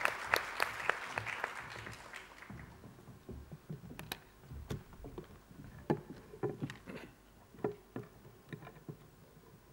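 Audience applause in a large hall, dying away over the first two to three seconds. After that, scattered faint knocks and clicks.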